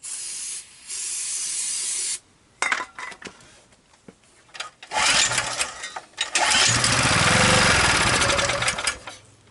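Two hisses of starting fluid sprayed from an aerosol can, then a few knocks, then the small generator engine pulled over with the recoil starter and firing for a few seconds before dying away near the end. It runs only on the starting fluid, which he takes to mean the engine might not be pulling gas.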